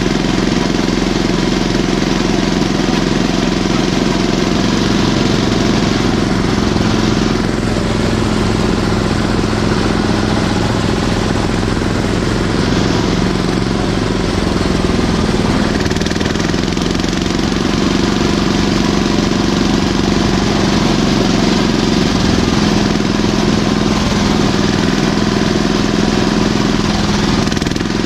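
Articulated mini tractor's engine running steadily under way at low road speed, heard close up from the driver's seat.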